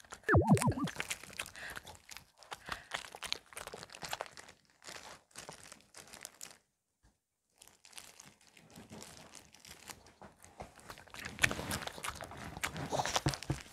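Maltese dog biting and chewing kimchi cabbage with small wet crunches, while a plastic food glove crinkles as the hand handles the kimchi, the crinkling louder near the end. A short vocal sound right at the start.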